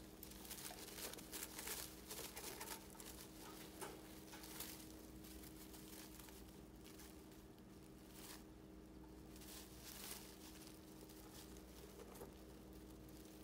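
Faint rustling and crackling of dry hay as 15-day-old rabbit kits shift and settle in a straw-lined nest box, busiest in the first few seconds, over a faint steady hum.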